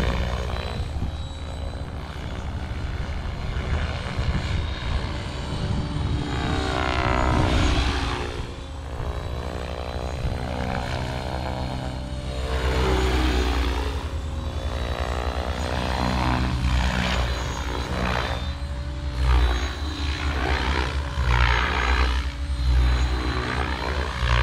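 Blade 700X electric radio-controlled helicopter in flight: its main rotor and motor make a steady whine that swells and fades several times as it passes back and forth.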